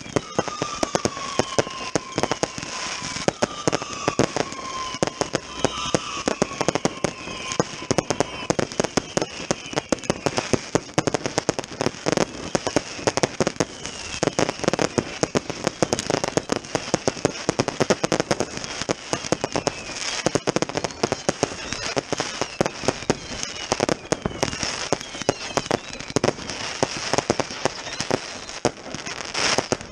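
Consumer firework batteries firing in a dense finale: rapid, continuous bangs and crackling. For the first eight seconds or so, whistles fall in pitch, and a cluster of louder bangs comes near the end.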